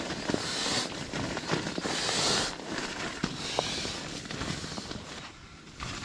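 Nylon fabric rustling in three swishes about a second and a half apart, with scattered small clicks and knocks: down trousers being handled out of their stuff sack and pulled on.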